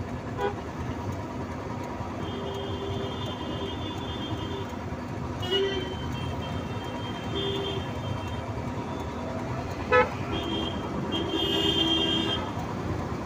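Road traffic heard from an open-sided auto-rickshaw: a steady engine and road rumble with vehicle horns honking, several held for a second or two. There is a short sharp beep about ten seconds in.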